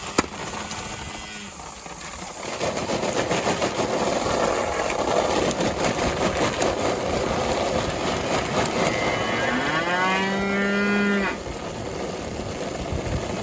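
A cow moos once, about ten seconds in: a call that rises and then holds for a second and a half. Under it, farm machinery runs steadily from a couple of seconds in until just after the moo, when it drops away. The machinery is most likely the grain cart's auger emptying corn.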